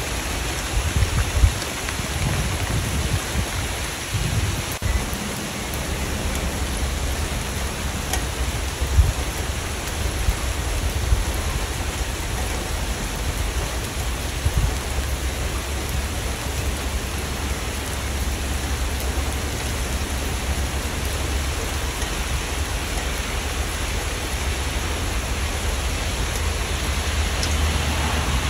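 Steady rain, an even dense hiss, over a low rumble, with a few louder low thumps in the first half.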